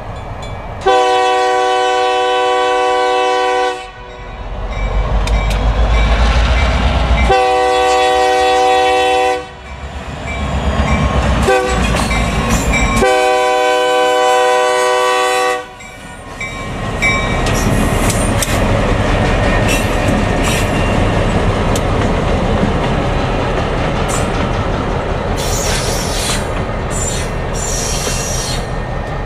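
Diesel locomotive air horn sounding three blasts for the grade crossing, from the lead unit, GP50 TPW 5008: long, shorter, long. After that the two diesel road switchers (GP50 and GP38-2) run past over the crossing, with engine rumble and wheel clicking over the rail joints and crossing.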